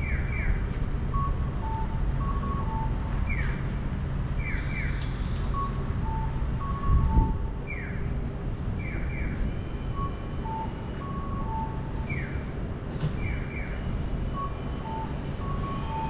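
Electronic bird-call pedestrian crossing signal repeating about every four seconds: quick falling chick-like 'piyo' chirps, single and then doubled, alternating with two-note 'kakko' cuckoo calls. Under it runs the low steady hum of the car and the road, with one thump about seven seconds in.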